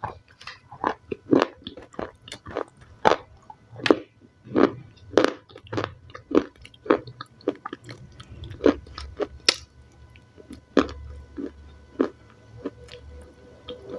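Close-miked chewing of crunchy salad, a crisp crunch with each bite, about one to two a second.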